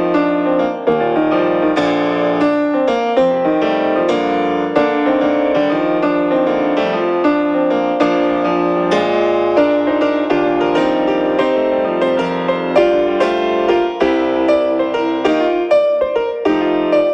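Background piano music: a steady flow of notes played at an even pace.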